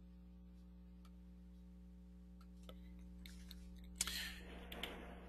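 Near silence on an open microphone line: a low steady electrical hum, with a few faint clicks and a sharper click about four seconds in, followed by a brief breathy rustle.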